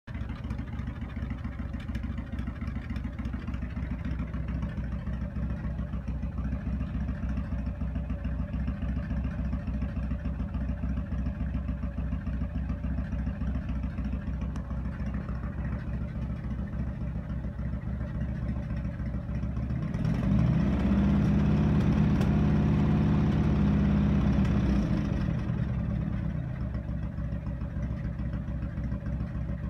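Harley-Davidson FXR's V-twin engine idling, running on a newly fitted air cleaner and spark plug wires. About twenty seconds in the throttle is opened and held so the engine runs faster and louder for about five seconds, then it drops back to idle.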